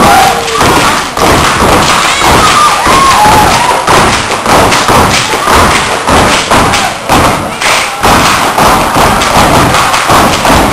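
Step team stepping: a fast, dense rhythm of foot stomps and hand claps on a stage floor, loud throughout.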